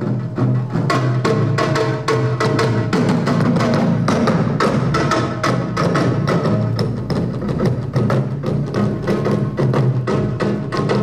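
Korean traditional percussion ensemble playing a set of buk barrel drums in a fast, dense rhythm of many strokes a second, over held low tones.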